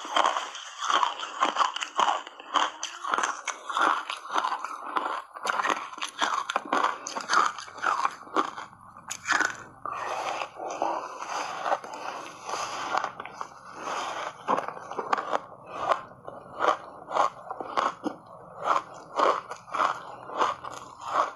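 Ice coated in matcha powder being bitten and chewed close to a clip-on microphone: big bites and crisp crunching, settling into a regular chew of about two crunches a second in the second half.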